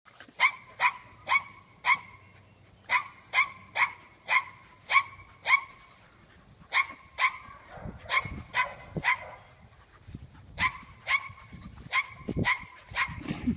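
A dog barking in play while wrestling with another dog: short, sharp, high-pitched barks in quick runs of about two a second, broken by brief pauses.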